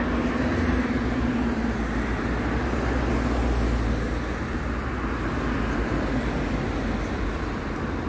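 Road traffic: cars driving past on a wide multi-lane road, a steady rumble of tyres and engines, with a low steady hum in the first second and a half.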